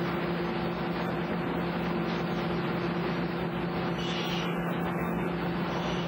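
Industrial sawmill machinery running: a steady drone of motors and conveyors with a constant low hum, and a short brighter hiss about four seconds in.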